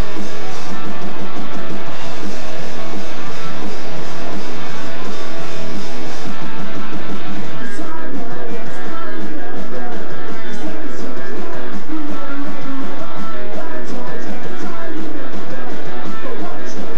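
Punk rock band playing live, with loud electric guitars, bass and drums, recorded through a camcorder's own microphone.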